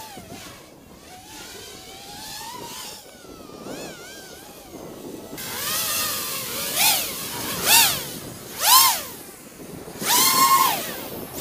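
The brushless motors and propellers of a 250-size FPV racing quadcopter whining, the pitch sweeping up and back down several times as the throttle is punched. The sweeps are faint and wavering at first and get louder in the second half, with about four sharp rises and falls.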